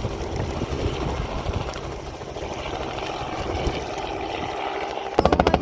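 Steady mechanical drone of a helicopter's engine and rotor. Near the end it turns suddenly louder into a fast, even chopping of the rotor blades.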